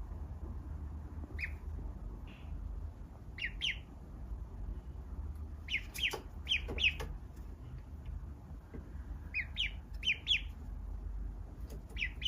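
Duckling peeping: short, high peeps, some single and some in quick runs of three or four.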